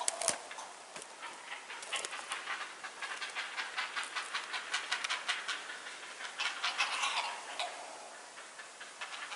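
Great blue herons calling from their nesting trees: a rapid series of short, dry notes that swells about two thirds of the way through, then fades.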